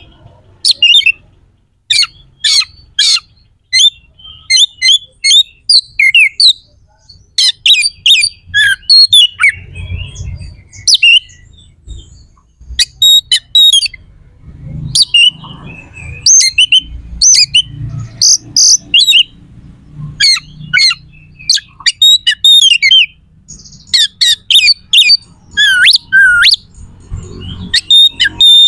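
Oriental magpie-robin (kacer) singing a harsh, rapid song: quick clusters of sharp, loud notes and whistles broken by short pauses.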